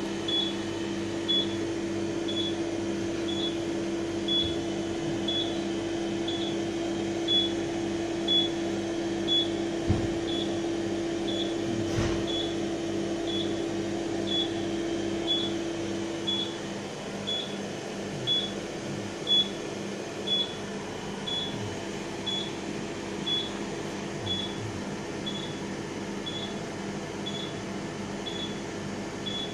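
Steady hum of a CO2 laser cutter's fans and pumps running, with a short high beep repeating about once a second. One tone in the hum cuts off a little past halfway.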